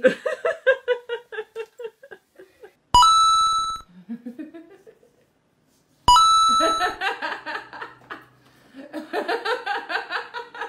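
A person laughing in quick rhythmic bursts. A sharp bell-like ding rings out for about a second, twice, about three seconds apart. More laughter follows near the end.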